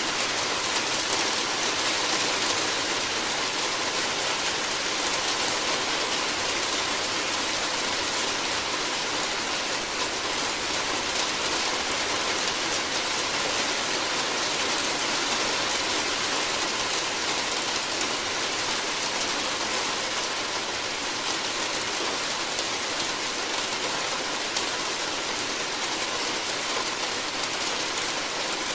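Steady rain falling on a roof, an even hiss of many drops with no pauses or changes.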